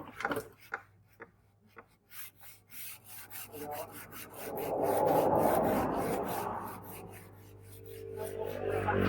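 Scraping and rubbing strokes of hand work on a knife piece: a run of short strokes, then a louder, longer rubbing sound in the middle, rising again near the end.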